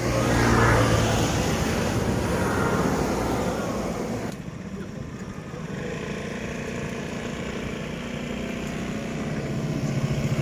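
A vehicle engine running, a steady motor hum that grows louder toward the end; the treble drops away suddenly about four seconds in.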